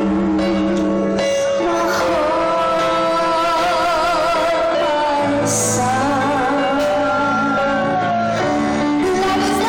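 A song with sustained singing with vibrato over an instrumental backing.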